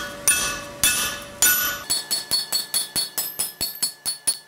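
A 3-pound turning hammer striking a steel drift to open a hot punched hole to 10mm, with ringing metallic blows: three spaced heavy strikes, then from about two seconds in a quick run of lighter taps, about five a second.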